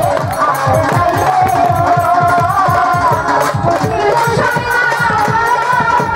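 Live Bangladeshi Baul folk music: a woman singing into a microphone in long held, wavering notes over fast, steady hand-drum beats.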